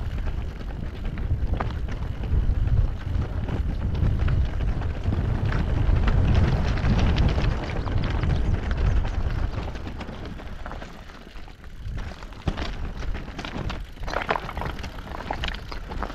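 Wind buffeting the microphone of a camera on a moving mountain bike: a low rumble that swells in the middle and eases about two-thirds of the way through. Under it run tyre noise and scattered clicks and rattles from the bike, thicker near the end.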